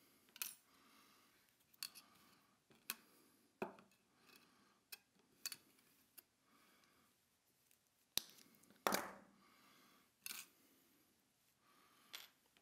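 Faint, scattered sharp snips and clicks of rail nippers cutting Code 83 model rail into closure-rail pieces, about ten in all at irregular intervals.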